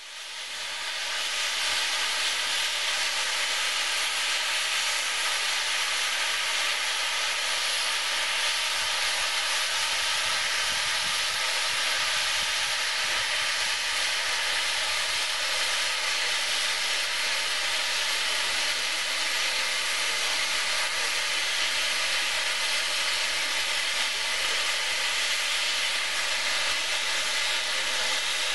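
Standing steam locomotive letting off steam: a steady hiss that fades in over the first second or two and then holds unchanged.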